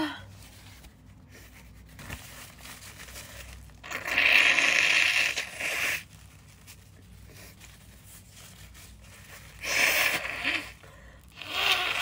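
A woman sneezing: a quick gasp at the start, then three loud breathy blasts, a long one about four seconds in and two shorter ones near the end.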